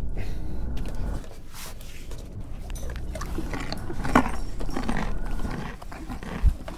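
A dog chewing and crunching a raw carrot, in irregular crackles, with a low bump near the end.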